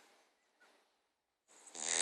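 Cavalier King Charles Spaniel snoring in its sleep: a near-silent pause between breaths, then a loud snore begins near the end.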